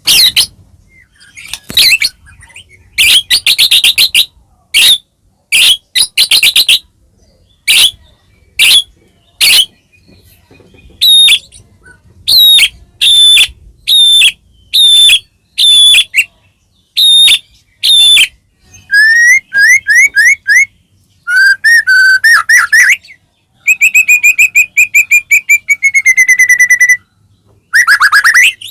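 White-rumped shama (murai batu) singing loudly: a run of short, rapid note bursts, then whistled phrases and a long trill that slides slowly down in pitch near the end.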